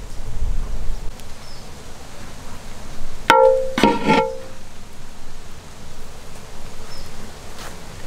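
Background music, with one strong pitched note standing out for about a second a little over three seconds in.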